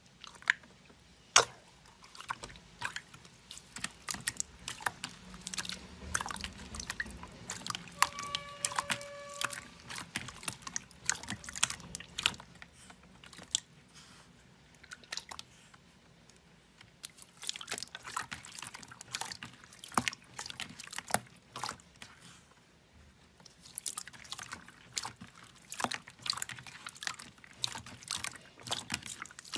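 Hands pressing and kneading glossy clear slime in a plastic bowl: wet squelches and sticky crackling pops in irregular clusters, with a couple of short lulls. A brief steady tone sounds about eight seconds in.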